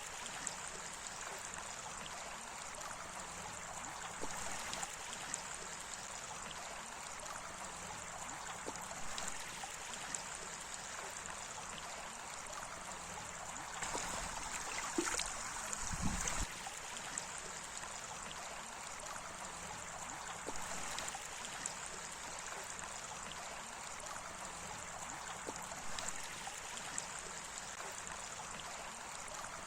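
Flowing water running steadily with a trickling, gurgling sound. About halfway through there is a brief low rumble.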